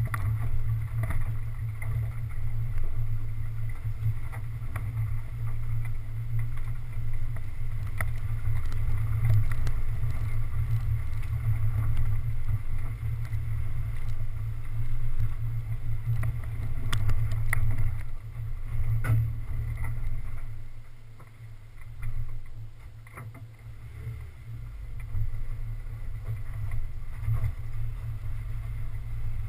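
Muffled low rumble of an off-road 4x4 driving a rough dirt trail, picked up by a hood-mounted camera: engine and buffeting drone with scattered knocks and clicks from the bumps and stones. The rumble drops off for a few seconds about two-thirds of the way through, then comes back.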